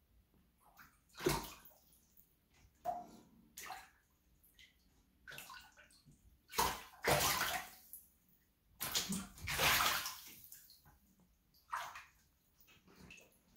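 A serval's paws splashing and sloshing shallow water in a bathtub as it swipes at fish. The splashes come in irregular bursts, with the longest and loudest about seven seconds and nine to ten seconds in.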